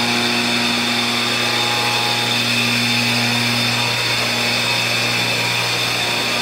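A steady mechanical hum with a hiss over it, from an electric motor running at constant speed.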